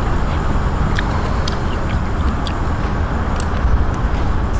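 Steady low rumbling background noise, with a few faint short clicks scattered through it.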